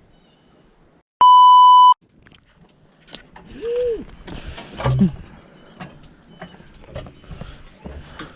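A loud, steady electronic bleep, about a second in and lasting under a second, followed by faint scattered knocks and light clatter.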